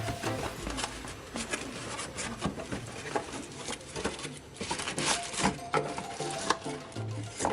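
Camera box packaging being handled: irregular rustling, rubbing and light taps of cardboard and plastic as the contents are lifted out.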